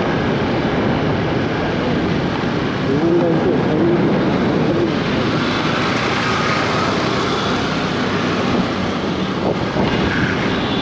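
Steady noise of road traffic, with vehicles moving past.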